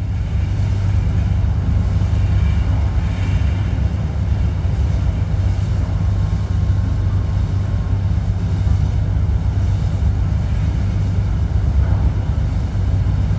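Steady low rumble of a large ship under way, its engines droning with a rushing wash over them.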